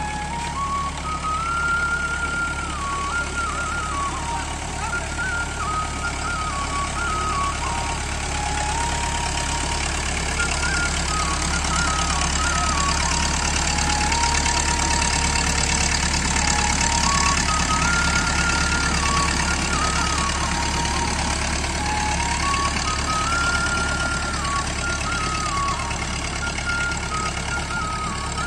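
Tractor engine running steadily under load as it drags a levelling board through wet paddy mud. Over it plays a simple high-pitched electronic tune, single notes stepping up and down in a short phrase that repeats.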